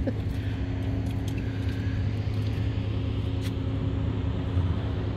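Ferry's engine running with a steady low drone and a constant hum.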